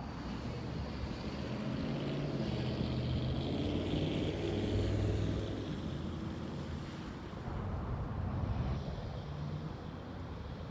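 A road vehicle passing by: its engine and tyre noise swells to a peak about halfway through, then fades.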